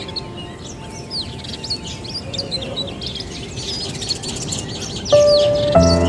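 Birds chirping busily, with many quick sweeping chirps overlapping one another. Background music comes in with a held note about five seconds in, joined by a bass line just before the end.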